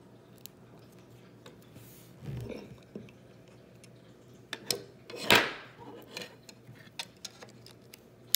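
Plastic Lego pieces clicking and knocking as they are handled and pressed together, with a louder clack about five seconds in.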